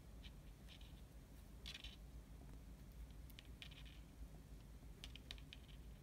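Faint small clicks and scratchy rustles of fingers handling thin wires and a small plastic DuPont connector, with a cluster of clicks near the end.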